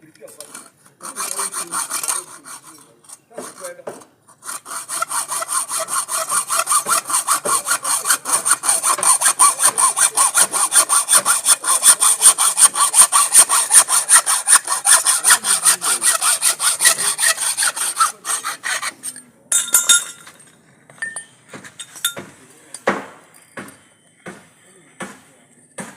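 Hacksaw cutting through a galvanized iron pipe: rapid, even back-and-forth rasping strokes that run for about fifteen seconds after a few false starts, then stop and give way to scattered knocks and clinks of the pipe being handled.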